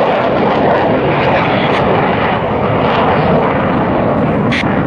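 Jet engines of Blue Angels F/A-18 Hornets (General Electric F404 turbofans) passing overhead: a steady, loud jet-engine noise.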